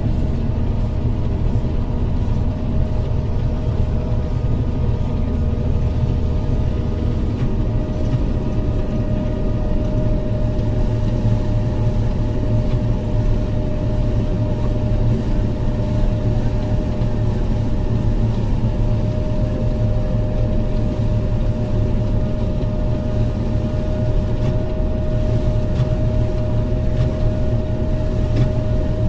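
Diesel engine of a heavy farm machine running steadily under load, with a low hum and a steady whine above it.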